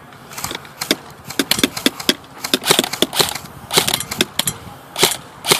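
Airsoft guns firing: irregular sharp clicks, single shots and short bursts, coming in clusters.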